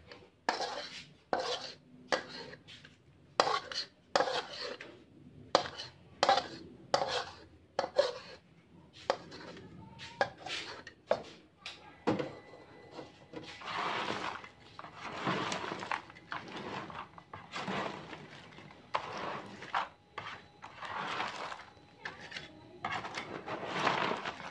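Metal spoon scraping and knocking sauce out of a black wok, in sharp irregular scrapes and clacks. From about halfway, crisp fried cassava chips rustle in long repeated swells as they are tossed with the spoon in a plastic basin to coat them in the sauce.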